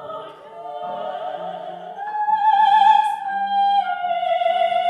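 Two women singing in operatic style, with sustained notes and vibrato: overlapping lines at first, then one long held high note from about two seconds in.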